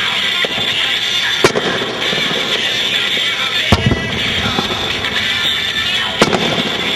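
Aerial fireworks exploding: three sharp bangs, about a second and a half in, near the middle and near the end, over a continuous dense noisy background.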